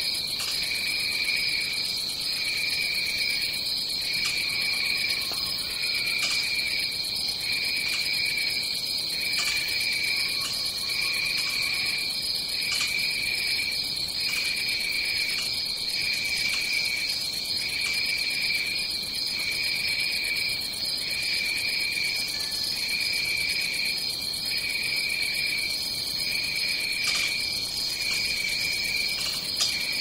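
Rainforest insect chorus: one high-pitched trill runs steadily, while a lower trilling call comes and goes every second or two.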